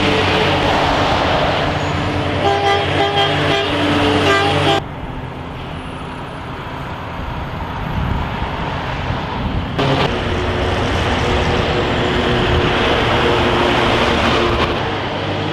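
Heavy vehicle engines running, with a run of short horn-like toots about three to five seconds in. The sound changes abruptly twice, near five and ten seconds in, as the footage cuts between vehicles.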